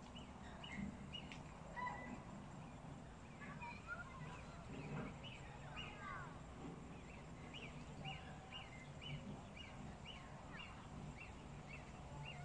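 Birds chirping: short high chirps, a few scattered early on, then repeated about twice a second through the second half, over a low steady hum.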